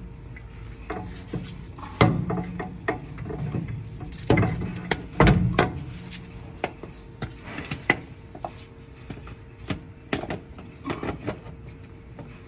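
Heavy metal knocks, clunks and scrapes as a new starter motor is manoeuvred up and seated against the engine, the loudest between about two and six seconds in, followed by lighter clicks and taps as it is handled. A faint steady hum runs underneath.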